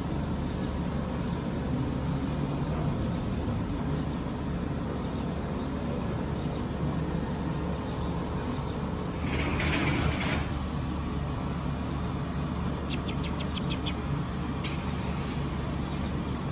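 Steady low rumble of a running vehicle engine, with a short hiss about ten seconds in and a quick run of sharp clicks a few seconds later.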